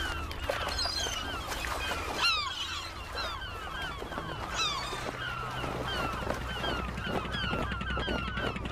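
A flock of gulls calling, many short downward-sliding cries overlapping at several a second, with a few louder close calls about two seconds in and again near the middle, over a low steady drone.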